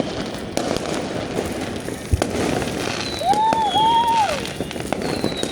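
Fireworks going off: steady dense crackling, a few sharp bangs, one with a deep thump about two seconds in, and whistling tones near the middle.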